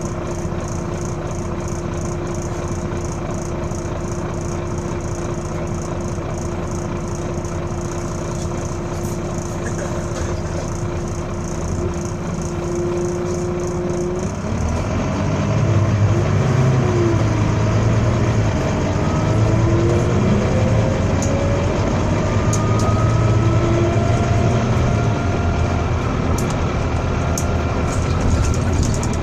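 Volvo B9TL bus's six-cylinder diesel engine idling with a steady tone and a regular ticking. About halfway through it pulls away and gets louder, and a whining wail rises and falls as it accelerates.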